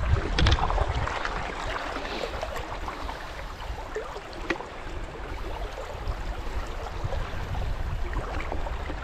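Fast river current rushing around a wading angler's legs, with a low rumble of wind on the microphone.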